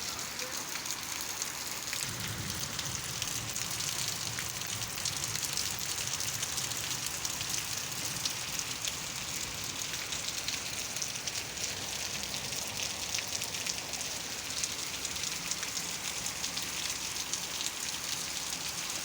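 Steady rain falling and pattering on surfaces, with many individual drop ticks, over a low steady hum.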